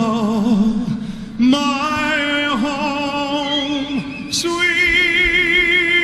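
A solo voice singing the national anthem a cappella, holding long notes with vibrato. It moves to a new note about a second and a half in and steps up to a higher held note about four and a half seconds in.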